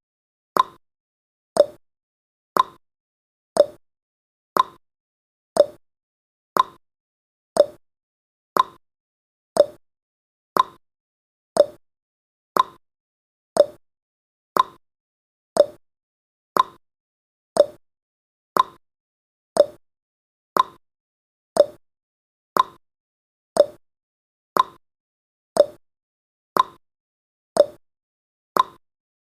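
Clock-style ticking sound effect of a countdown timer: a sharp tick once a second, evenly spaced, alternating higher and lower like a tick-tock.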